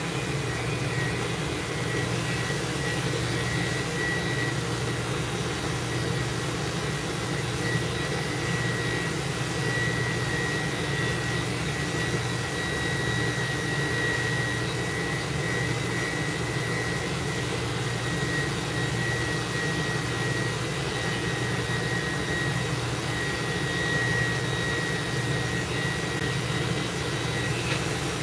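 Steady whooshing machine noise with a thin high whistle held over it, inside a mobile dog-grooming van.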